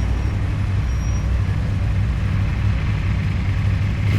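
CFMoto 450SR parallel-twin motorcycle engine running at steady low revs, a deep, even rumble with no revving.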